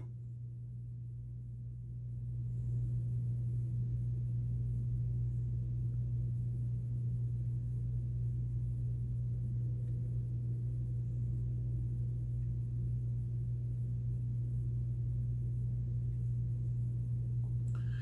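A steady low hum with no speech, swelling a little about two seconds in and then holding level.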